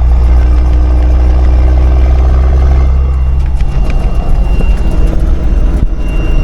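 A 5-ton military truck's turbo diesel engine running under way with a steady low drone through its aftermarket exhaust. About halfway through the steady note breaks up into a rougher, uneven rumble as the throttle eases, and a faint high steady whine comes in.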